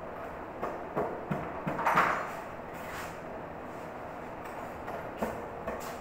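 Scattered knocks and clicks of hand work at a door, over a steady background noise; the loudest knock comes about two seconds in, with a couple more near the end.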